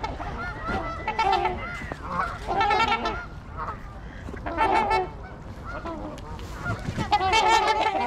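Canada geese honking, several birds calling over one another in bursts every second or two.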